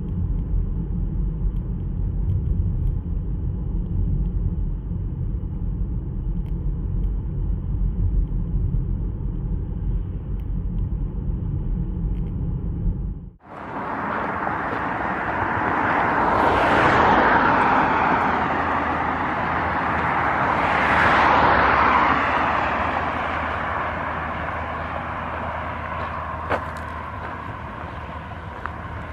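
A steady low rumble, then after a sudden change a wider outdoor noise that swells and fades twice, like vehicles passing by, with a single sharp click near the end.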